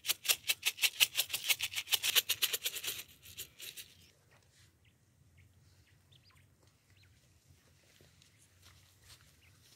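Rice rattling in a small plastic packet as it is shaken out onto dirt ground, a fast even rattle of about nine shakes a second that stops about three seconds in. After it come faint, scattered ticks as a quail pecks at the scattered grain.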